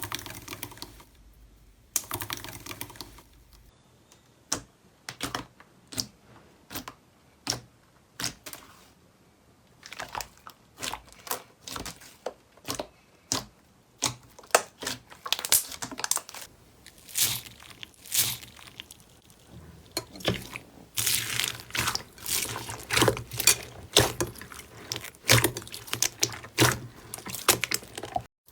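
Slime being squeezed and poked by hand, giving irregular sticky clicks and pops. The clicks are sparse at first and come thicker and louder in the second half.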